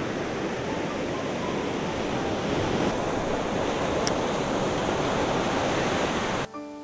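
Surf washing in over a sandy beach, a steady rushing noise; it cuts off suddenly near the end as piano music begins.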